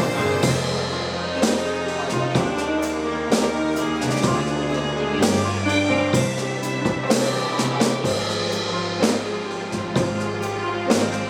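Instrumental music with a steady drum-kit beat over held bass and chord notes, no singing.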